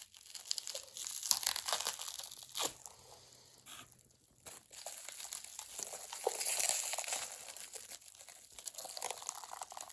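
Plastic wrap crinkling and crackling as it is pulled and torn off a boxed ceiling fan, with a short lull about four seconds in.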